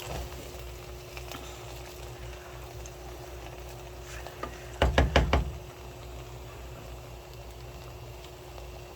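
Stir-frying rice in a pan: a low, steady background of sizzling, with a quick run of about five loud knocks of a utensil on the pan about five seconds in.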